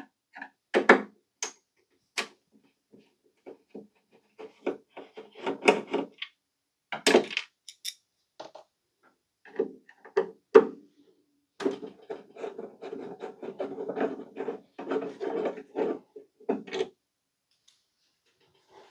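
Screwdriver backing screws out of the rear of a Commodore SuperPET's case: scattered clicks and scrapes, then a longer stretch of rubbing and squeaking as a screw turns out, in the second half.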